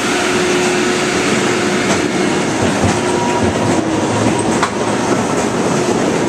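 Dragon's Challenge (Chinese Fireball) inverted roller coaster train rolling along its track, heard from a seat on board: a loud, steady rush and rumble with a few sharp clicks, as the train moves from the station toward the lift hill.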